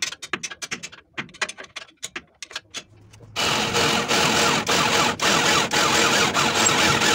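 An electric drill boring through a steel chassis bracket to enlarge bolt holes. It starts about three seconds in and runs steadily under load. Before it there is a run of light clicks.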